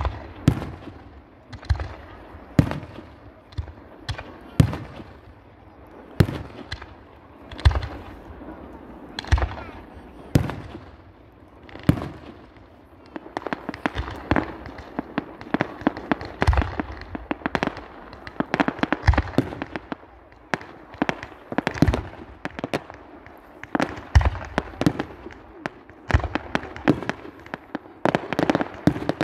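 Fireworks display: a barrage of aerial shells bursting with sharp bangs about every one to two seconds, turning into a denser, rapid run of bangs and crackling about halfway through.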